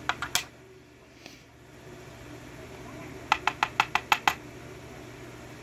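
Sharp little clicks of a pin-tumbler lock plug being tapped and shaken to free its key pins: three quick clicks at the start, then a run of seven about a second long in the middle. The key pins stay stuck in the plug.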